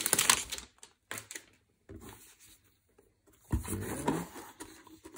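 Clear plastic wrapping crinkling as it is handled, fading out within the first second, then brief quiet rustles and a soft thump about three and a half seconds in.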